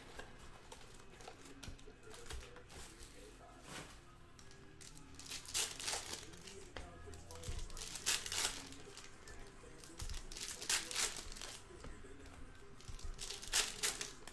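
Plastic wrappers of trading card packs being torn open and crinkled by hand, in short rustling bursts every couple of seconds.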